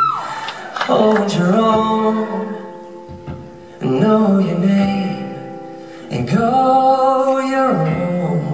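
Live singing: a man's voice in three phrases of long held notes through a concert sound system, with acoustic guitar accompaniment.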